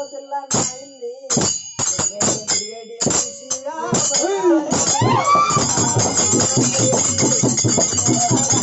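Live group music. A held keyboard chord sounds under separate sharp strikes, and about four seconds in a fast, steady jingling percussion rhythm starts, joined by singing voices.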